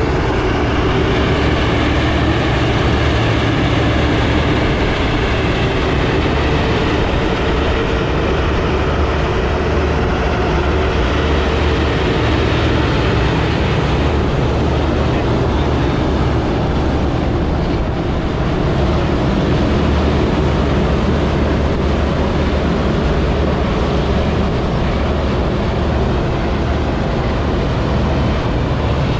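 Narrow-gauge sugar-cane railway diesel locomotive running steadily with its cane wagons, a constant loud engine drone with a faint wavering whine over about the first half.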